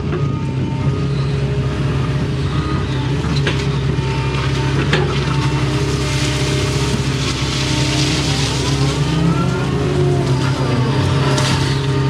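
Excavator's diesel engine running steadily under load, with a hydraulic whine that rises and falls as the boom, bucket and swing are worked while mucking out a ditch. A rushing noise swells between about six and nine seconds in.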